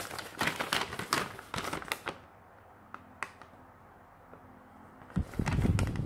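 A folded paper instruction sheet being unfolded by hand, crinkling and rustling in quick crackles for about two seconds, then a few small rustles. A low rumble of handling noise comes near the end.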